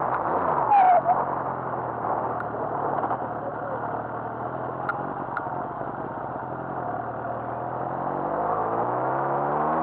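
Motorcycle engine running under way with wind and road noise, its pitch sagging as the bike eases off through a bend and then climbing near the end as it picks up speed. A short, loud falling whistle sounds about a second in.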